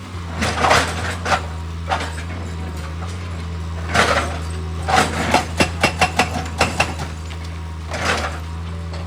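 Excavator's diesel engine running steadily, with hard clattering knocks of rock and metal over it: a burst near the start, another at about four seconds, a quick run of sharp knocks in the middle, and one more near the end.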